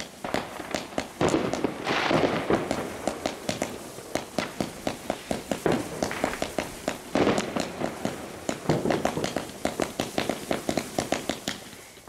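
Consumer firework battery (cake) firing a rapid string of shots, several a second, as it launches comets. There are two louder stretches of dense noise, one about a second in and one around seven seconds in.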